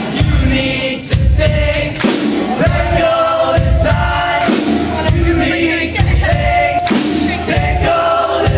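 Live rock band playing loudly: drums and electric guitars under many voices singing a melody together.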